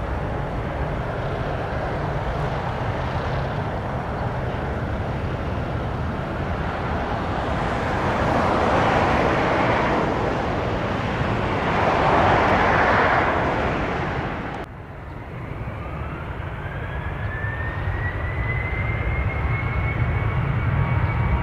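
Jet airliner engine noise: a steady roar that swells twice about halfway through, then drops off abruptly. A thin turbine whine then rises steadily in pitch to the end.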